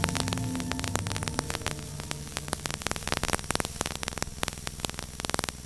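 The last notes of the outro music fade out in the first second or two. They leave a steady low hum with irregular crackling clicks, like static.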